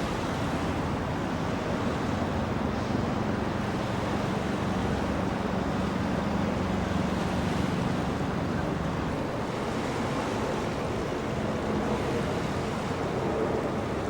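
Steady wind rumble on the microphone and water noise, with a low, steady boat-engine drone that fades out about nine seconds in.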